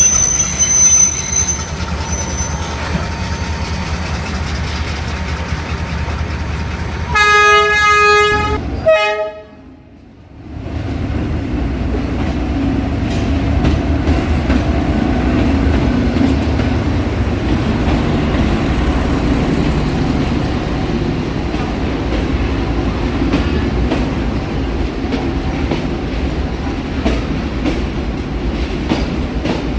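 Model trains running on track with a steady rumbling clatter. A horn blasts about seven seconds in. Around nine seconds the sound drops away for a second or so, then the rumble resumes.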